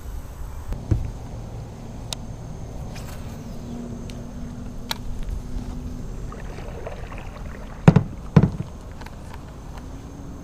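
Kayak and fishing gear being handled: a light knock about a second in, a few sharp clicks, then two loud knocks about half a second apart near the end, over low steady background noise.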